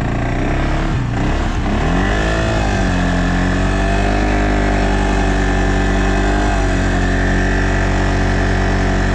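CFMoto CForce 600 ATV's single-cylinder engine pulling through deep snow, its pitch rising and falling about two seconds in, then running steady.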